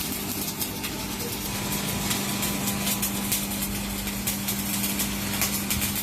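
A machine motor running with a steady hum, with frequent small clicks and ticks over it.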